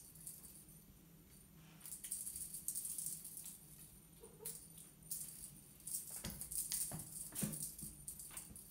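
Kittens scrabbling and pouncing on a hard plank floor after a wand toy: light rattling skitters of claws and paws, with a few thumps of landing bodies about six to seven and a half seconds in.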